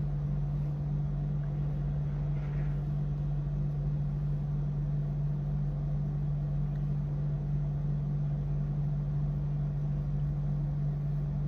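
A steady low hum that does not change in pitch or level.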